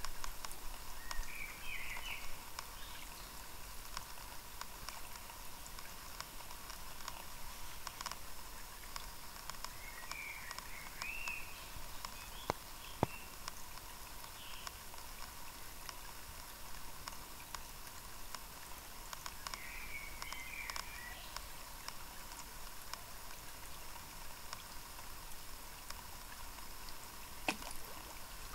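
Quiet creek ambience with a steady hiss and soft water patter, broken three times by a short burst of high warbling chirps, roughly ten seconds apart. A couple of sharp clicks come near the middle.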